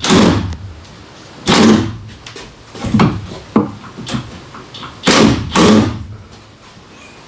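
A series of loud bangs and knocks, about five in all, the loudest a double bang about five seconds in.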